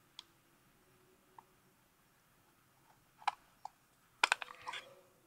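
Small metal clicks and taps as the viewfinder cover and its tiny screws are handled and lifted off a Bolex 16mm camera body. A few faint single clicks come first, then two sharper clicks, then a quick cluster of clicks and rattles about four seconds in.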